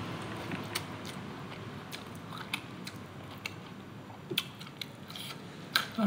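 Close-up chewing of a hand-fed mouthful of rice and egg, with scattered wet mouth clicks and smacks.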